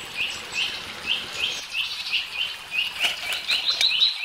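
A bird calling with a steady run of short, high chirps, two or three a second, over a faint sizzle of batter-coated colocasia pieces deep-frying in oil in an iron kadai. A few sharp clicks come about three seconds in.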